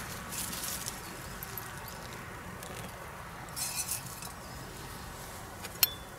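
Water poured briefly from a small metal pot into a wooden cup, then a short rustle as the pot is set down on dry leaves. A single sharp clink rings out near the end.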